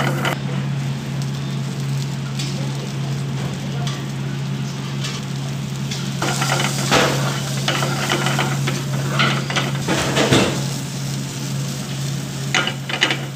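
Chopped onions and green peas frying and sizzling in a black pan over a gas flame, stirred with a steel ladle that scrapes and clatters against the pan several times, over a steady low hum.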